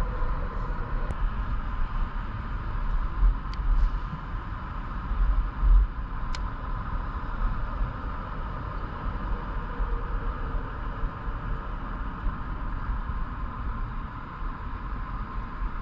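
Wind rumbling on the microphone over a steady hum, with three faint clicks in the first half.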